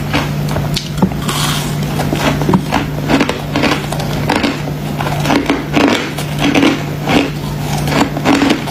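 Freezer frost ice being bitten and chewed close to the microphone: a quick, irregular run of crisp crunches, over a steady low hum.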